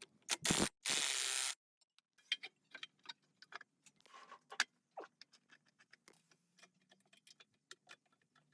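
Two short bursts of loud hissing noise about half a second and a second in, then a run of light metallic clicks and clinks, like small metal parts being handled and fitted.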